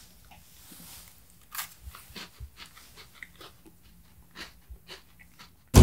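Someone biting into and crunching a biscuit: a run of short, irregular crunches and chewing sounds. Music starts abruptly at the very end.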